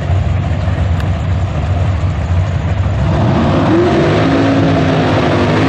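Drag-racing car engine running loud with a rough low rumble. About three seconds in it revs up and holds at a steady, higher pitch.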